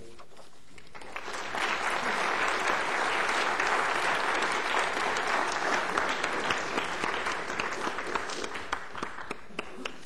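Audience in a lecture hall applauding, swelling about a second in and thinning out to scattered single claps near the end.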